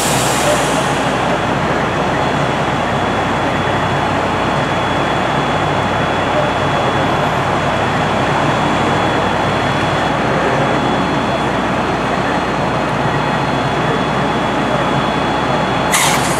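Steady rumble of vehicle engines and traffic noise around a burning car, with a short sharp hiss near the end.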